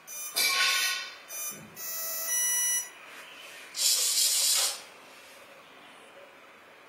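Electronic beeps of changing pitch over the first three seconds from RC model electronics, then a loud, harsh buzz lasting under a second about four seconds in.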